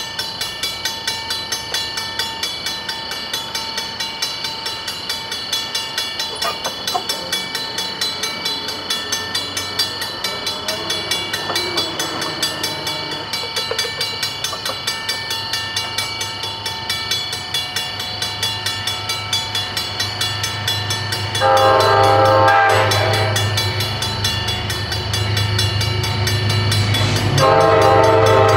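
Diesel commuter train approaching on the Danbury branch: the locomotive's engine rumble swells over the second half, and its air horn sounds a loud chord for about a second and a half, then again shortly before the end.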